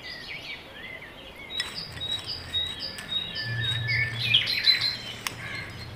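Small birds chirping over and over in quick, short calls, with a couple of sharp clicks and a low steady hum underneath.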